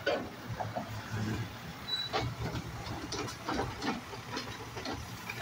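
Automated side-loader garbage truck running at a standstill while its hydraulic arm works, with a faint hiss and irregular clunks and knocks from the arm and cart.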